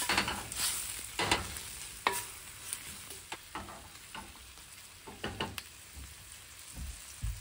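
Sliced new onions sizzling in olive oil in a small stainless-steel saucepan, with a wooden spatula stirring and scraping against the pan at irregular intervals. The salted onions are giving up their water as they sauté, cooked so they stay white rather than browning.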